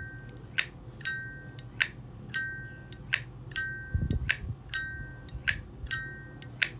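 Zippo-style windproof lighter's hinged brass lid flicked open and snapped shut over and over, about ten bright metallic clicks with a clear ring to each. That ring is what collectors listen for: here it is clear, like an untouched original lighter. One duller thump comes about four seconds in.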